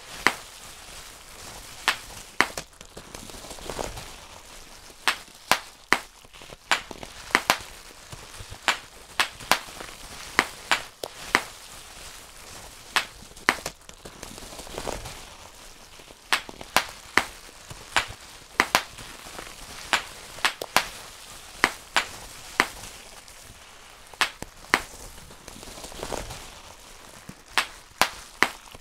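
Bubble wrap being popped by hand: sharp single pops at an irregular pace, about one or two a second, with a soft crinkling of the plastic sheet between them.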